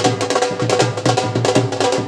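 Dhol drums played fast, rapid strokes in a steady dance rhythm, with a held melody line sounding over them.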